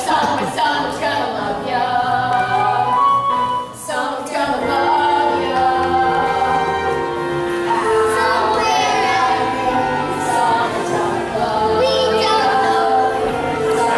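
Young performers singing a musical-theatre number together, in held, sustained notes.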